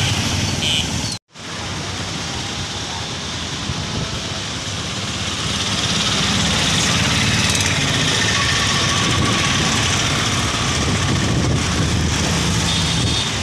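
Steady road-traffic noise with a low engine hum, cutting out completely for a moment about a second in and then running on evenly.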